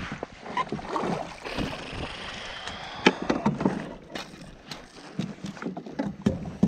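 Splashing water as a landing net holding a bass is lifted out of the lake into a kayak, then a sharp knock about three seconds in and a run of clicks and thumps against the hull as the net and fish settle.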